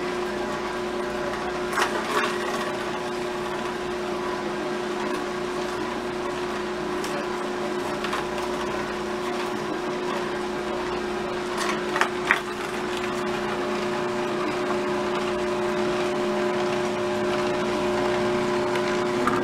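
Vertical slow masticating juicer running with a steady hum as carrot sticks are fed into its hopper and crushed by the auger. A few sharp knocks come about two seconds in and again about twelve seconds in.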